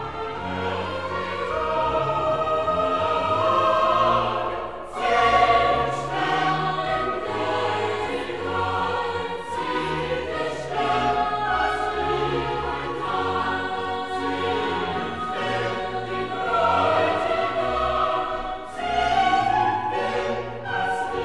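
Classical choral music: a choir singing long held notes over an orchestra, with a brief pause between phrases about five seconds in.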